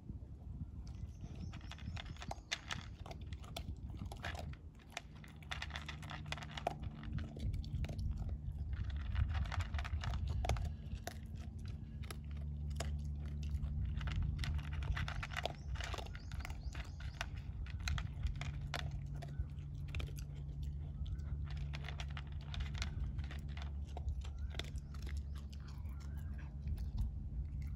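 A dog crunching and chewing dry food pellets from a plastic bowl: many small, irregular crunches and clicks. A low steady hum runs underneath from a few seconds in.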